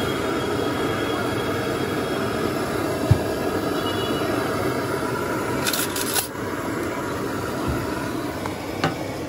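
Steady street background noise with a low traffic rumble. A single low thump comes about three seconds in, and a few sharp clicks come about six seconds in.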